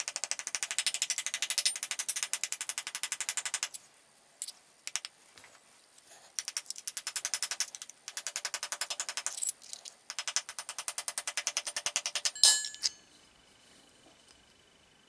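Rapid light hammer blows on a small iron plate resting on an anvil, several strikes a second, in three runs with short pauses between: the plate is being curved to fit the hand for a gauntlet. One louder knock comes a little after twelve seconds, then it goes quiet.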